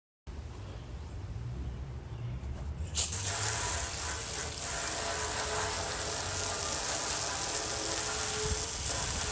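Water spraying from a hose onto a porcelain sink to rinse it: a steady, loud hiss that starts suddenly about three seconds in, after a low rumble.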